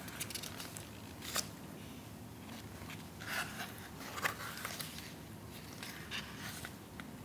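Pages of a softcover photobook being turned and held by hand: a few faint paper rustles and short crisp flicks of paper.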